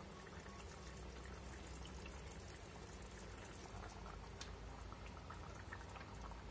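Faint bubbling and ticking of a thin egg curry gravy simmering in a pan, over a low steady hum.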